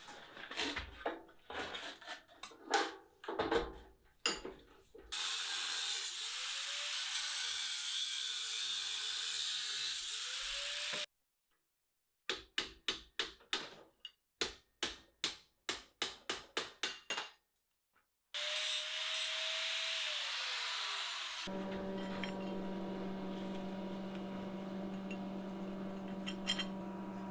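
Shop work on a steel forge fire pot in short cuts. First come scattered metal clanks and knocks, then a power tool spins up and runs. After a cut there are about a dozen sharp strikes, roughly two a second, and then a tool winds down with a falling whine. From about 21 seconds a steady hum runs to the end.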